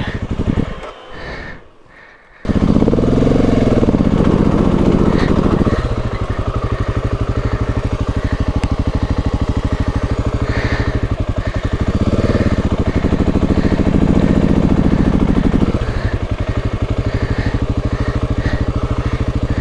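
Dual-sport motorcycle engine coming in abruptly about two seconds in, then running with the revs rising and falling twice as the bike works a steep, loose, rocky climb.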